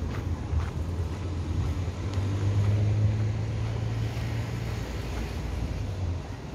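A low engine hum drifting past. It swells from about two seconds in and fades again near the end, over a steady low rumble.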